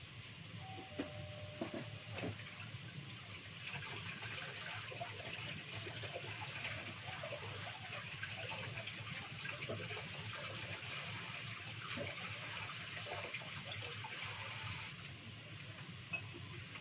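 Water running from a kitchen tap into a sink as food is rinsed under it, a steady splashing stream that eases off near the end. A few sharp knocks, like utensils or a bowl against the sink, come in the first two seconds.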